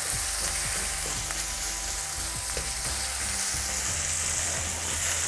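Garlic paste, ginger paste and chilli sizzling steadily in hot oil in a pan, frying on low heat toward browning.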